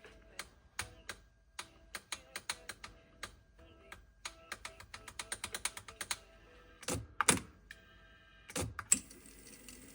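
Sony TC-K777 cassette deck clicking again and again as its playback mode and relays are engaged, with a quick run of clicks about five seconds in. The relays clicking in is the sign of the right channel's intermittent failure to engage. Near the end a short burst of sound comes through, then a steady hiss.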